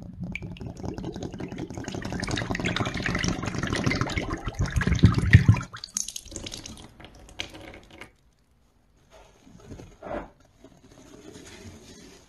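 Liquid poured from plastic bottles onto a bar of soap, splashing steadily and growing louder, then stopping suddenly about six seconds in. Quieter scattered wet sounds follow, with one short splat near the end, as the soaked soap is handled.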